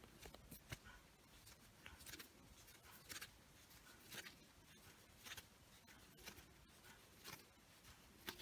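Faint soft ticks and rustles about once a second: a crochet hook working single crochet stitches in yarn.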